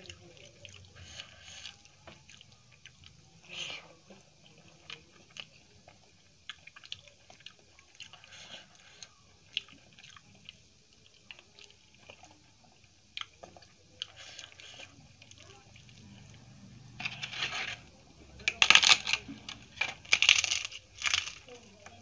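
Fingers mixing rice and curry on a steel plate, with faint scattered clicks and squishes. Near the end comes a run of loud crackling crunches of crisp papad breaking.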